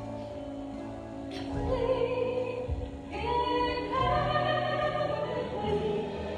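Worship music with singing voices over sustained instrumental chords; a sung phrase enters about three seconds in.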